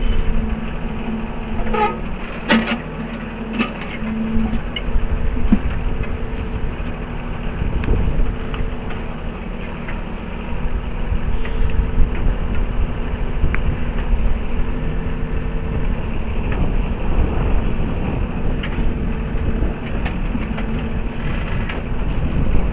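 Mahindra 3616 tractor's diesel engine running steadily while the backhoe is worked, its pitch shifting as the hydraulics take load, with a few sharp knocks in the first few seconds.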